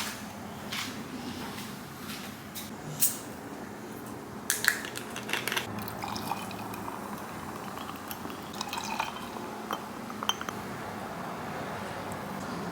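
Kombucha being poured into a glass, with a few sharp clinks and knocks of glassware and dishes.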